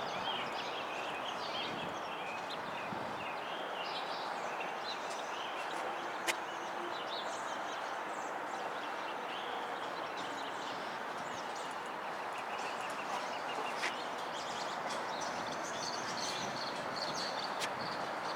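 Small birds chirping over a steady outdoor background noise, with two brief sharp clicks about six and fourteen seconds in.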